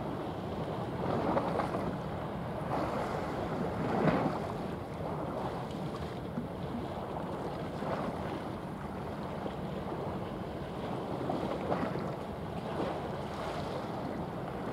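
Wind gusting over the microphone with the wash of sea waves, a noisy rushing that swells and fades every second or two, loudest about four seconds in.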